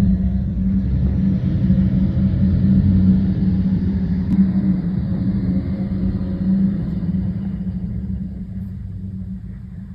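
Garbage truck's engine running as the truck pulls away, a steady low drone that fades as it drives off.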